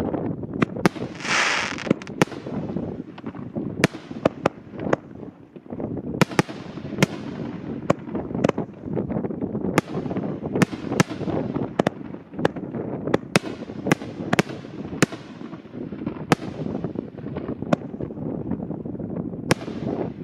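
5-inch aerial firework shells from a fiberglass mortar tube going off in quick succession: a string of sharp bangs, about one or two a second, over continuous crackle, with a brief hiss about a second in.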